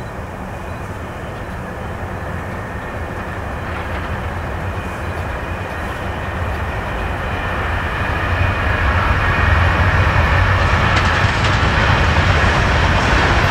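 Norfolk Southern diesel locomotive approaching on the line, its engine and wheel rumble growing steadily louder and levelling off about two-thirds of the way in as it draws near.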